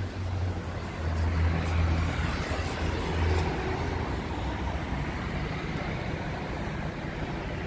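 Gusty wind blowing hard and rumbling on the microphone, over a steady roar like street traffic. It swells for a couple of seconds about a second in, then holds steady.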